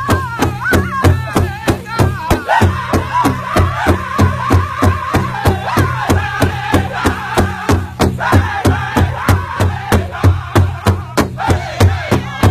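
Powwow drum group singing a chicken dance song: high men's voices in wavering melody over a big powwow drum struck by several drummers in a fast, steady beat, about three to four beats a second.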